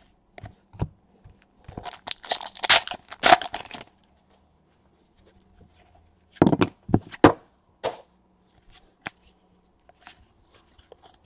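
Cardboard trading cards being flipped through by hand: short papery rustles and slides. They cluster about two to four seconds in and again around six to seven seconds, with a few soft ticks between.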